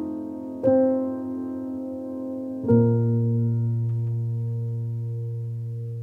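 Slow, soft piano music: a chord struck about half a second in and another about two and a half seconds in, the last left to ring and fade.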